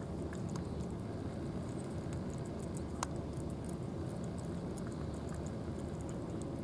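Two cats eating wet flaked fish from trays: rapid small clicks and smacks of chewing and lapping, with one sharper click about three seconds in, over a steady low rumble.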